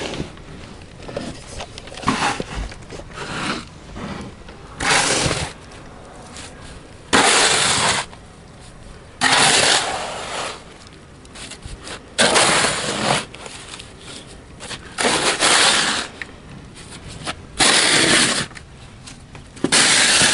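Snow shovel scraping across snow-covered pavement in repeated strokes, one every two to three seconds, each a short harsh scrape.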